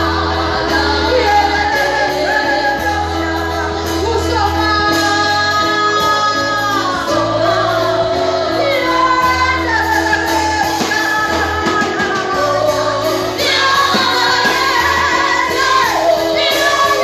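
Gospel music with singing: voices sing a melody over a steady bass line.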